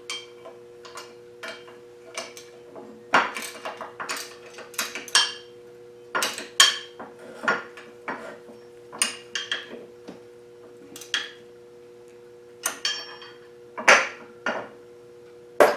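Irregular metallic clinks and knocks of a wrench and steel parts as the belt grinder's angled tool rest is tightened down, a few per second in clusters with short rings.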